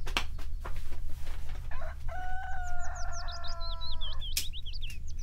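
A rooster crowing once, a long call of about two seconds that sinks slightly in pitch, starting about two seconds in. Quick high bird chirps overlap it, and a few sharp clicks come at the start and near the end.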